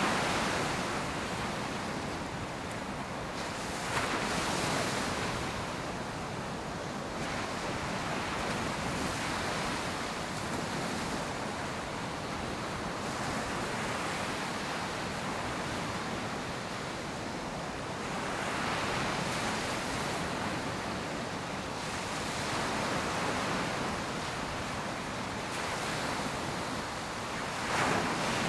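Ocean surf breaking and washing onto a beach, a steady rush of water with a wave swelling louder every few seconds.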